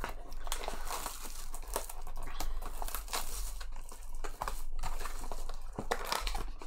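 Trading card pack wrappers crinkling and rustling as packs are opened and cards handled, a dense run of crackles and small clicks.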